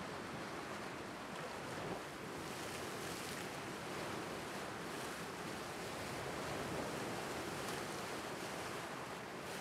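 Lake Superior waves washing in and splashing against a flat rock shoreline: a steady rush of surf that swells and eases, with small splashes now and then.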